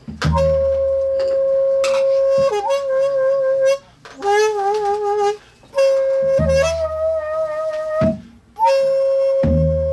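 Daegeum, the Korean large bamboo transverse flute, played solo: long held notes, some steady and some with a wide wavering vibrato, broken into phrases by three short pauses for breath.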